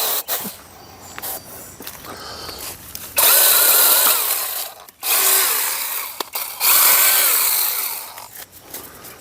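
Cordless brushless mini chainsaw (6-inch NaTiddy) run in three short bursts about three, five and six and a half seconds in, its electric motor whining up to speed, holding, then winding down as it cuts into a limb. Quieter rustling and clicks of handling come before the first burst.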